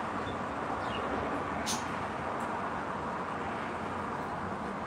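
Steady rushing background noise like distant traffic, with two or three brief high bird chirps in the first two seconds.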